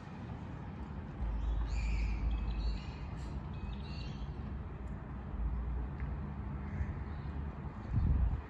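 Vintage electric tram rolling slowly past on its track, a low rumble that swells and eases several times, loudest near the end. Birds call for a couple of seconds about two seconds in.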